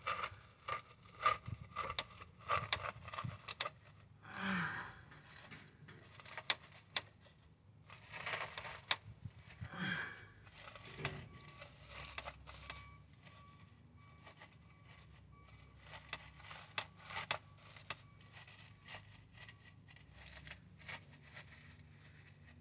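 Intermittent clicks, taps and scraping as swamp cooler parts are handled and fitted back together, with a few longer rubbing scrapes in the first half.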